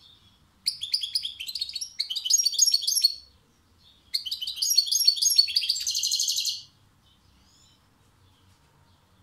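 European goldfinch singing from its cage: two phrases of rapid high notes, the first starting just under a second in and the second about four seconds in, each lasting two to three seconds.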